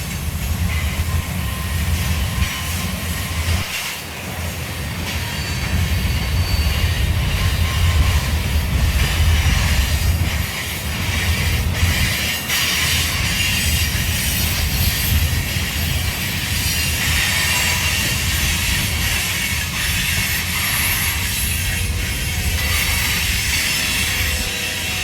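A freight train's cars rolling past steadily, wheels clattering over the rails and squealing, under a heavy low rumble of wind on the microphone.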